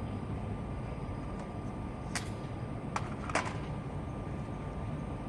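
Steady low outdoor rumble, with three short sharp clicks about two, three and three and a half seconds in.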